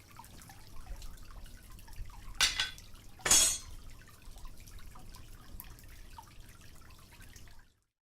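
Water dripping and trickling from buckets shot full of holes, with two louder noisy bursts about two and a half and three and a half seconds in. The sound cuts off suddenly near the end.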